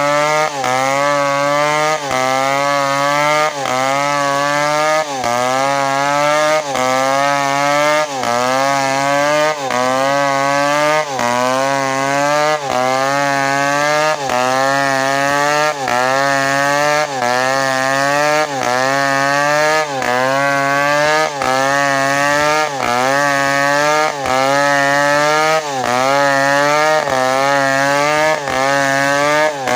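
Two-stroke chainsaw running at high revs while cutting coconut wood, its pitch sagging and recovering in an even rhythm about every second and a half.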